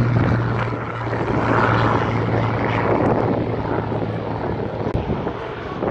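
Piston-engined propeller aircraft flying past, its steady engine drone with a rushing airflow sound slowly fading.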